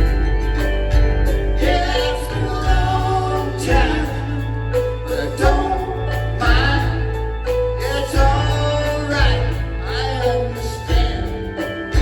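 Live rock band playing at full volume, with singing over a steady bass and drum beat.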